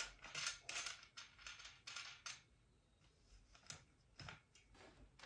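Faint handling noise from assembling metal backdrop stand poles: a quick run of light clinks, clicks and rustles over the first two seconds or so, then a few isolated clicks.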